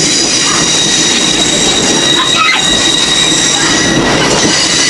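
Steel wheels of a moving open-air flatcar running over old jointed rail, with a steady high-pitched wheel squeal over the rumble.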